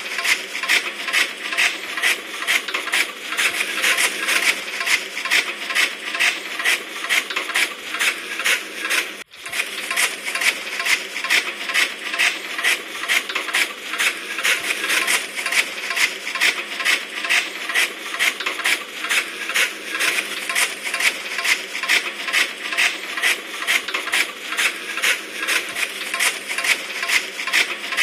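Chaff cutter's flywheel blades chopping green fodder, with a steady metallic clacking at about three strokes a second. The sound drops out for a moment about nine seconds in.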